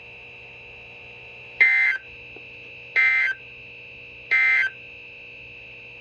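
NOAA Weather Radio end-of-message SAME data bursts from a Reecom weather alert radio's speaker: three short, buzzy digital tone bursts about a second and a half apart, marking the end of the weekly test broadcast. A faint steady high tone lies under them.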